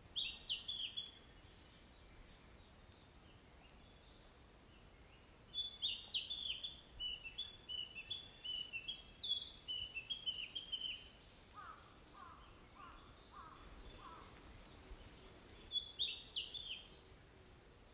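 Wild songbirds singing in phrases of sharp, high, falling notes, each phrase a quick run of chirps. The phrases come at the start, in a longer run from about five seconds in, and again near the end, with a few lower notes in the middle and a quiet gap between phrases.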